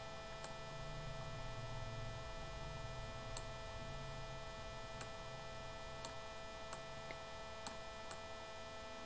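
Steady electrical mains hum with several sharp computer-mouse clicks spread irregularly through it, as the letter-spacing spin box is clicked step by step.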